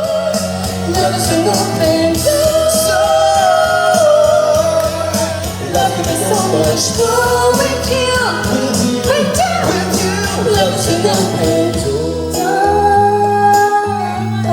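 Pop song with a singer's voice over instrumental backing and a steady beat.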